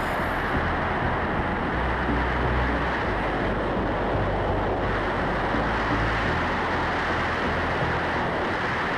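Steady rush of wind over the microphone with a low buffeting rumble: the airflow of a wingsuit flight.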